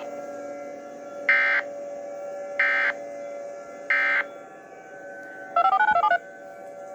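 Three short bursts of EAS end-of-message data tones, the harsh digital screech of the SAME header, about a second apart, ending the emergency alert broadcast. Near the end comes a brief burst of rapidly alternating electronic beeps, over a faint steady hum.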